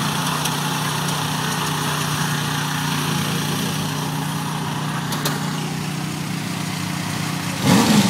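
Lifted Bolens garden tractor's engine running at a steady pitch as it wades through deep mud-bog water, with a brief louder surge near the end.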